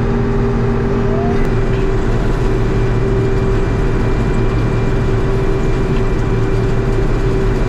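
Older John Deere combine running at working speed, heard from inside its cab, with a steady low drone and a higher whine, as its corn head feeds into standing corn. One of the steady tones drops out about one and a half seconds in.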